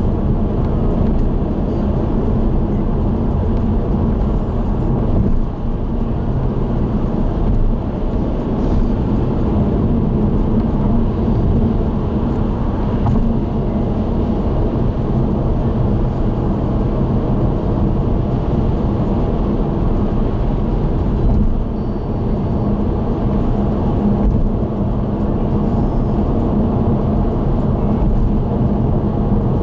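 Steady road noise of a car cruising on an expressway: tyre rumble and engine hum, with no change in pace.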